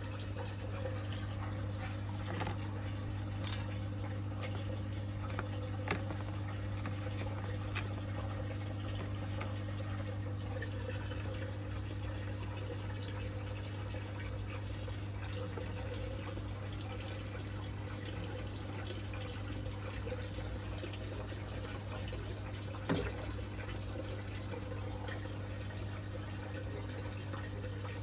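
Aquarium water bubbling over the steady low hum of a tank pump, with a few short clicks, the sharpest one late on.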